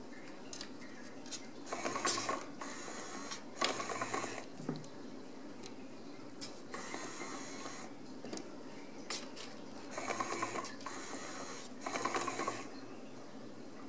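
Kittens pawing at a dangling wand toy: about five short bursts of rattling, clicking and scratching, spaced a couple of seconds apart.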